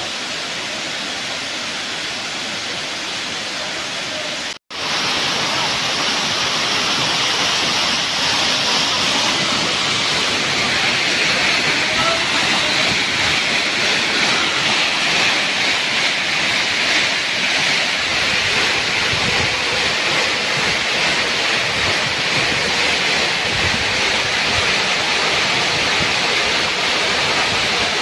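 Waterfall rushing steadily as it cascades down a sloping rock face into a pool. The sound drops out for a split second about four and a half seconds in, then returns louder and hissier.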